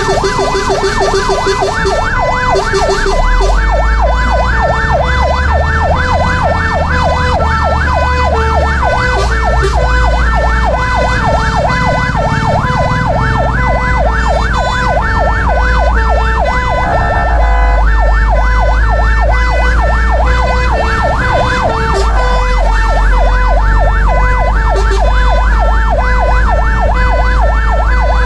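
Fire engine's electronic siren in a fast, repeating up-and-down yelp, heard from inside the cab over the truck's engine running. The siren briefly changes pattern about two-thirds of the way through.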